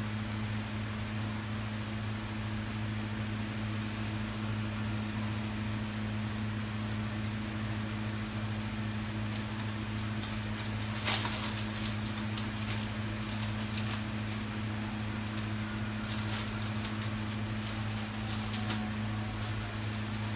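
Steady low electrical hum with a light hiss while the pot of broth heats on the cooktop. From about halfway in come scattered faint ticks and crackles, a cluster near the end.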